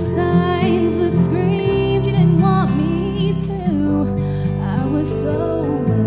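A song sung by a woman with acoustic guitar accompaniment, her long held notes wavering with vibrato over steady chords.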